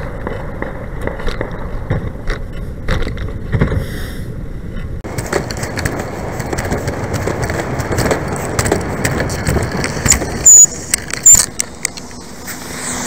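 Wind and road noise from riding a bicycle, with scattered sharp pops in the first few seconds. Two very loud short bursts with a brief high squeal come about ten and eleven seconds in.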